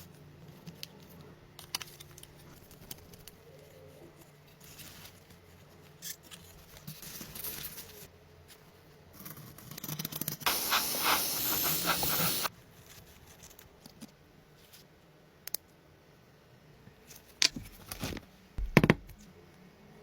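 Small hands-on work noises: scattered light clicks and scrapes, a spray hissing for about two seconds a little past halfway, and a few sharp knocks near the end.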